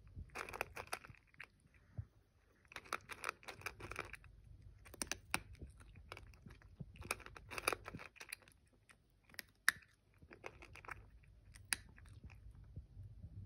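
A cat crunching dry kibble from a stainless steel bowl, in bursts of chewing with short pauses between mouthfuls, and a couple of sharp single clicks near the end.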